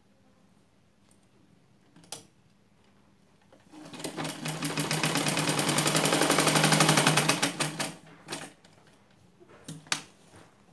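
Sewing machine stitching in one run of about four seconds: it starts a little before four seconds in, speeds up to a fast, even rattle, then stops. A few single clicks come before and after the run.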